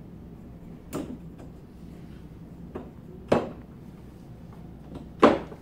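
Plastic cart shelf knocking against the posts and post caps as it is set down onto aluminium tubes: four short knocks, the last two loudest.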